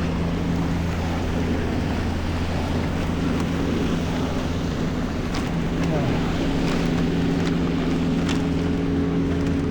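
Steady rumble of city street traffic, with a nearby motor vehicle's engine running at a steady pitch, and wind buffeting the microphone.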